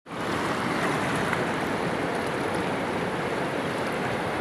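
Sea waves washing over a rocky shore: a steady rushing noise.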